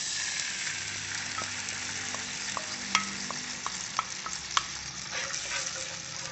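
Teriyaki sauce poured into a hot oiled pan of sautéed garlic and ginger, setting off a sudden sizzle that keeps going steadily. From about a second and a half in, a series of short ticks from a wooden spatula against the pan.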